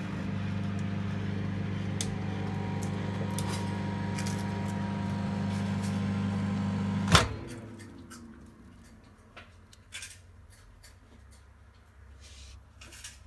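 Microwave oven running with a steady hum while heating puris, stopping about seven seconds in with one sharp loud click. After that come a few faint light clicks and taps.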